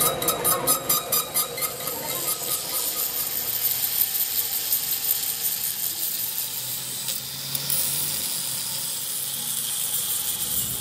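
Lathe cutting a steel truck axle hub, pulsing about four times a second with steady ringing tones. About two seconds in this gives way to an angle grinder grinding a weld on the axle tube: a steady high hiss over the motor's low hum.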